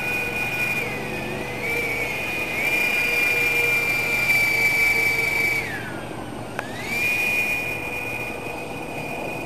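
Ducted fans of a radio-controlled model boat running at high speed with a steady high-pitched whine. The pitch dips briefly about a second in, then falls away for about a second near six seconds in as the throttle eases off, and climbs back to full.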